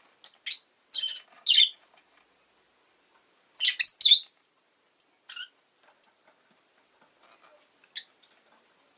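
Rosy-faced lovebird giving short, sharp, high-pitched chirps in scattered bursts: several in the first two seconds, the loudest cluster about four seconds in, then a couple of fainter single chirps later.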